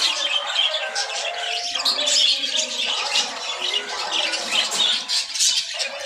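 A room full of caged aviary birds, budgerigars and cockatiels among them, calling over one another in a dense, unbroken chatter.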